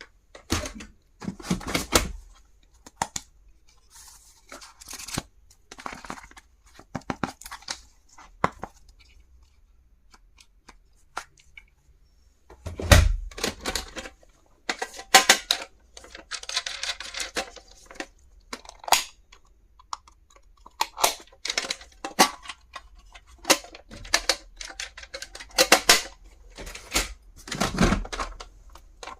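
Packaging being unwrapped by hand: crinkling and tearing of wrapping, broken by many sharp clicks and knocks as small stationery items are handled and set down.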